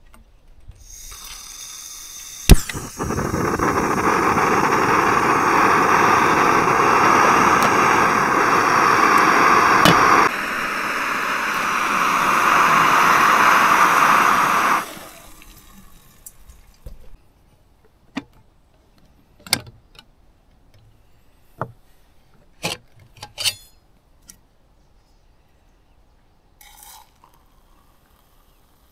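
Canister-gas backpacking stove with an integrated pot, lit with one sharp click and then burning with a loud, steady hiss for about twelve seconds while it heats water for coffee. The hiss cuts off suddenly when the gas is shut off. A few light clinks and a brief pour follow.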